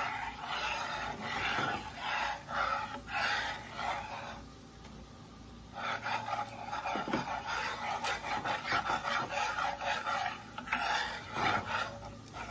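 Metal spatula scraping back and forth across the bottom of a cast-iron skillet, stirring a roux as flour is worked in. The strokes pause briefly just before the middle, then carry on steadily.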